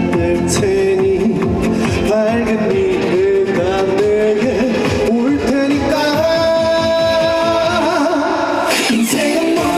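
Live performance of an upbeat trot song over the PA system: a melody line over a steady drum beat.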